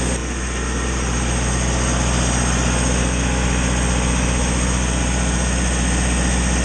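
John Deere 4045 turbocharged four-cylinder diesel engine of a generator set running at steady speed, a constant low engine drone with no change in pitch.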